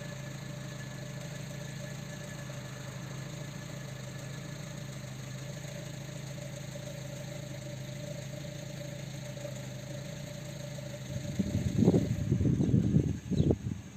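An engine idling steadily with a constant low hum. About eleven seconds in, loud irregular rumbling covers it for a couple of seconds.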